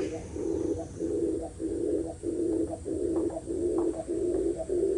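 Oriental turtle dove giving a rapid series of low coos, about two a second and without a break. This is the bowing cooing of a dove's courtship display.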